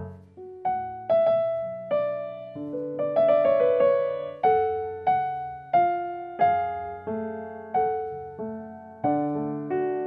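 Slow, gentle piano music as background: notes and chords struck about once or twice a second, each ringing out and fading before the next.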